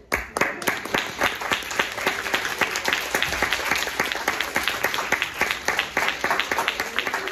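An audience starts applauding all at once and keeps clapping steadily.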